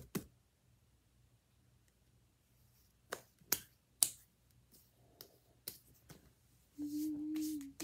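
Sticky, over-wet slime popping off the hands as the palms press together and pull apart: a few sharp snaps about three to four seconds in, then smaller ticks. Near the end a steady low tone is held for about a second.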